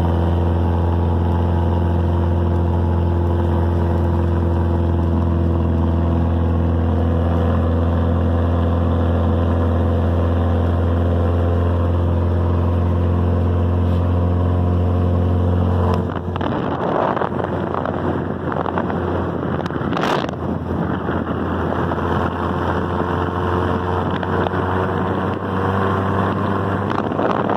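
Car engine running at a steady speed while driving, a constant hum. A little past halfway it changes abruptly to a rougher, noisier rush with wind on the microphone, and there is one sharp knock a few seconds later.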